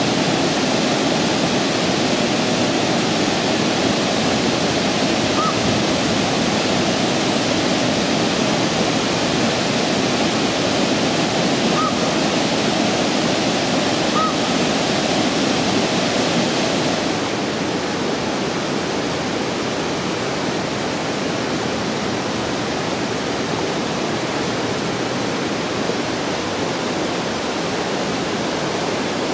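Steady rush of river water pouring over a dam, with three faint short chirps in the first half. A little over halfway through, the sound turns duller and slightly quieter as its highest hiss drops away.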